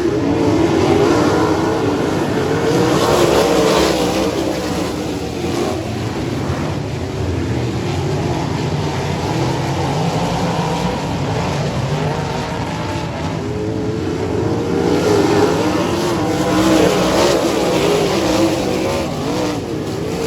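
Sprint car V8 engines racing around a dirt oval, their pitch rising and falling with the throttle. The sound swells twice as the field comes past.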